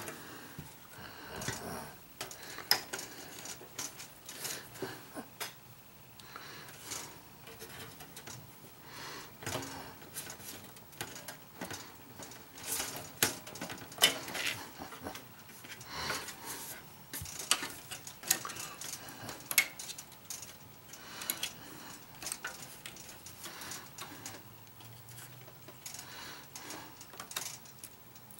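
Irregular clicks, taps and light scrapes of a KitchenAid toaster's metal shell and internal parts being handled and fitted together during reassembly.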